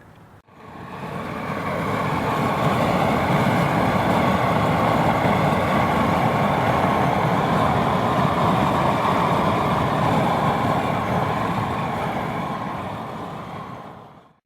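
Propane torch burning at full flame with a steady, loud rush, scorching the surface of a board. It fades in about half a second in and fades out near the end.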